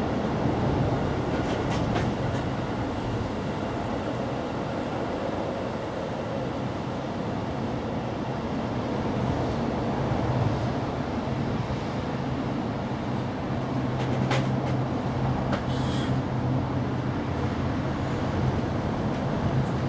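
A steady low mechanical hum over background noise, with a few faint brief clicks and a short thin high note near the end.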